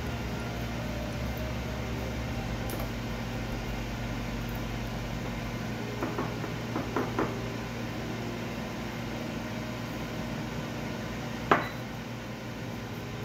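Gloved hands handling marinated chicken in a glass bowl: a few soft clicks midway and one sharp knock against the glass near the end, over a steady low hum.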